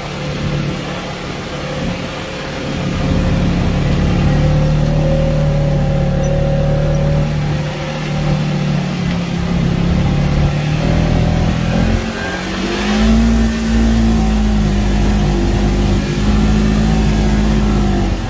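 Side-by-side utility vehicle's engine running under way, steady at first, then rising in pitch about two-thirds of the way through and holding at the higher speed.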